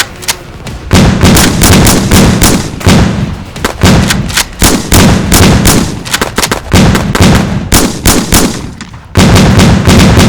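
Rapid machine-gun-style gunfire, many shots a second in long bursts with short pauses between them. The first second is quieter, and there is a brief break about a second before the end.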